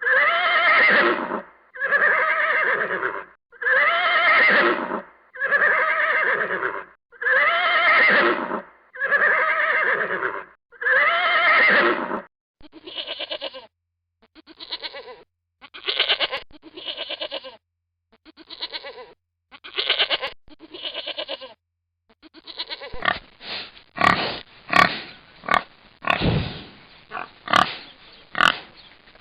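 Animal sound effects, several kinds of animal calling in turn. First come seven long, evenly spaced pitched calls, then shorter and fainter calls, then a quicker run of calls with sharp clicks near the end.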